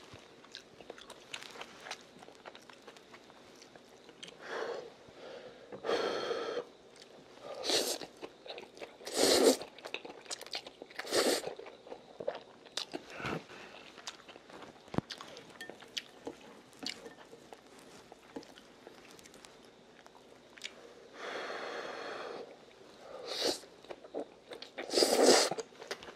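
A person eating stir-fried udon noodles: chewing and mouth noises in short bursts every second or two, with a couple of longer ones.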